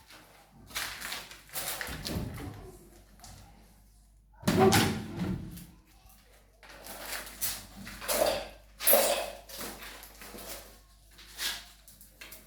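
Irregular knocks, bangs and clatter of things being handled and struck.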